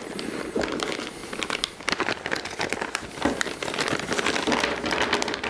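A small clear plastic bag crinkling as it is handled and worked open by hand: a dense, irregular run of crackles.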